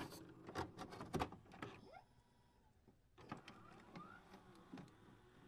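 Faint sound effects for an animated intro: scattered clicks and short electronic glides, with a near-silent gap partway through.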